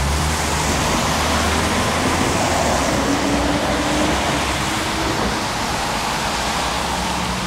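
Tram running: a steady rumble and rolling noise, with a faint tone that rises in pitch between about two and five seconds in.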